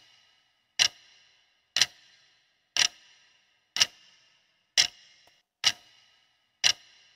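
Clock-ticking sound effect, one sharp tick a second, seven ticks in all, marking a countdown timer for answering a question.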